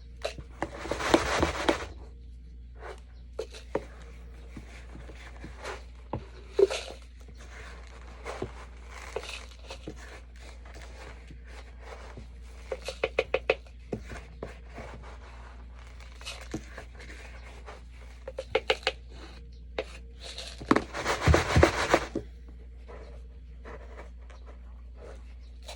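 Cleaning out a cat's litter box: a scoop scraping and rustling through the litter, with scattered clicks and taps and short runs of rapid rattling as litter is sifted. There are two longer scraping bursts, one about a second in and one near the end.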